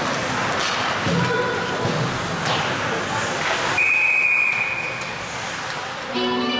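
A referee's whistle blown in one long steady blast about four seconds in, over the general noise of an ice hockey rink. Arena music starts up near the end.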